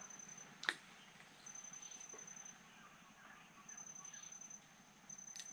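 An insect trilling: a thin high-pitched tone in stretches of about a second with short gaps between them. A sharp click under a second in, and another near the end.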